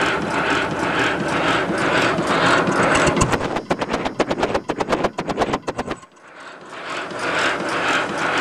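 Scale steam locomotive driven by compressed CO2 instead of steam, running at full speed on rollers, its exhaust beating in a steady rhythm about twice a second. About three seconds in, a rapid run of sharp clicks takes over. The sound then almost cuts out for a moment before the beat comes back.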